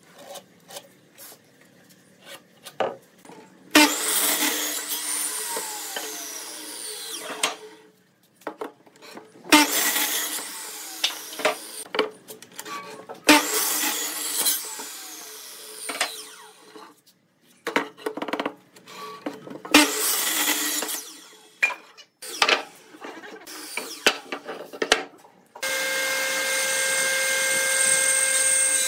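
A Dongcheng electric miter saw cutting boards four times: each time the motor starts sharply, cuts through the wood and winds down with a falling whine, with knocks and clatter of boards being handled in between. Near the end a combination jointer-planer starts and runs steadily.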